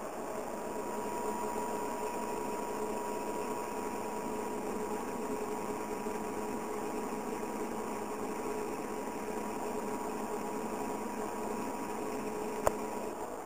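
BOMAG BW 213 DH single-drum padfoot roller's diesel running steadily while compacting sand, heard from inside the cab as an even hum with a steady whine. A single sharp knock near the end.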